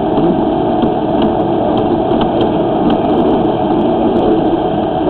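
Steady engine-like drone with no breaks.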